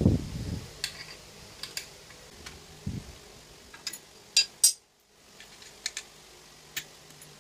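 Irregular sharp metal clicks and taps of tools working on the bolts as the angle grinder is tightened down onto its steel stand, with a dull knock at the start and two louder clicks about four and a half seconds in.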